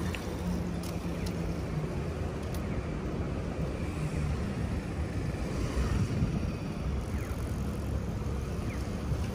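Outdoor city street ambience: a steady low rumble of road traffic, with a few faint clicks in the first few seconds.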